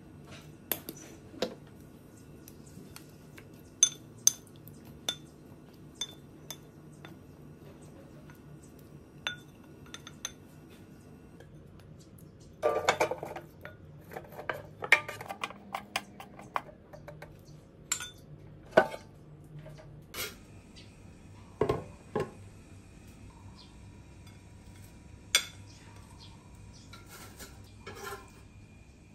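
Light clinks and knocks of a wooden spoon and potato sticks against a ceramic bowl and a non-stick air fryer basket. A burst of rattling comes about 13 seconds in as the potatoes are tipped and stirred in the basket.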